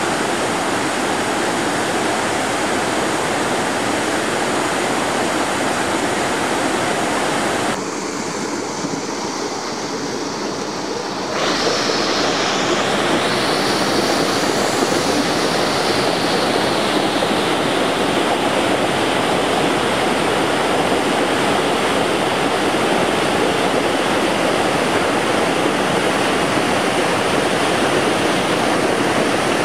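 Steady rush of a mountain brook tumbling over rocks and a waterfall pouring into a pool. The rush drops softer and duller about eight seconds in and comes back fuller a few seconds later.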